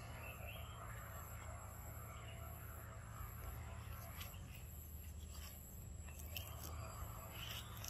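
Faint outdoor background with a steady low hum, and from about halfway on a few soft clicks and rustles of dry leaf litter as the monkeys move on it.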